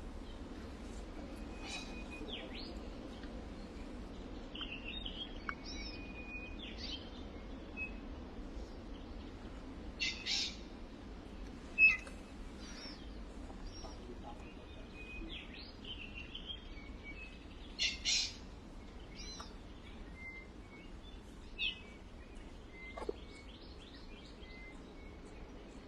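Birds chirping and calling in short, scattered notes, with a few sharper, louder calls about ten, twelve and eighteen seconds in.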